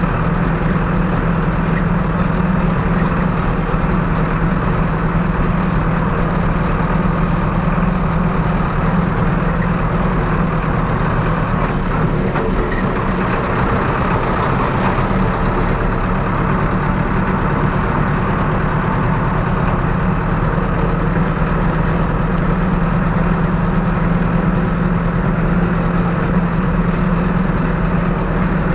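Zetor 6745 tractor's four-cylinder diesel engine running steadily at an even speed.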